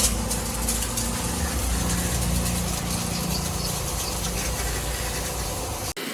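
Bajaj Pulsar RS200's single-cylinder engine idling steadily; the sound cuts off abruptly near the end.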